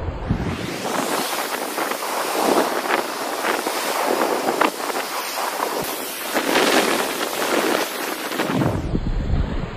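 Rough sea: waves breaking and foaming water rushing over rocks, a dense hiss that swells with louder surges about two and a half, five and seven seconds in.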